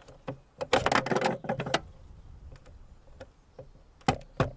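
Hand tool working the car's fasteners: a rapid clattering run of metal clicks for about a second, then scattered ticks and two sharp clicks near the end.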